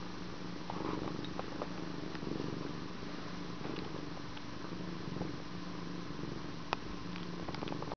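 Domestic cat purring steadily up close, with a few small clicks and one sharper click near the end.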